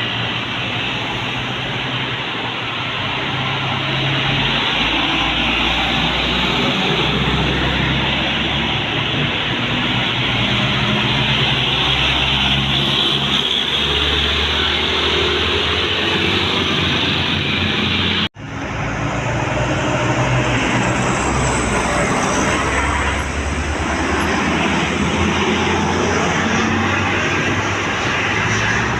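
Road traffic noise with large bus engines running, a steady rushing hiss over a low engine hum; the sound drops out suddenly for a moment about eighteen seconds in, then carries on.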